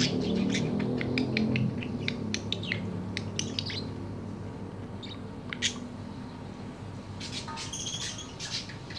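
Budgerigar chattering in quick, short high chirps, dense at first and thinning out, with a short burst of warbling near the end. A low rumble fades out over the first couple of seconds.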